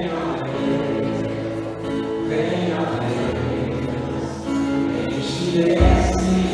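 Choral gospel music: a choir singing sustained chords over instrumental backing, with a deep bass note coming in near the end.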